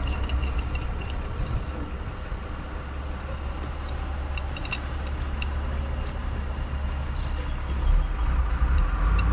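A steady low rumble runs throughout, with a few faint light clicks as a brass hose fitting and gladhand are handled.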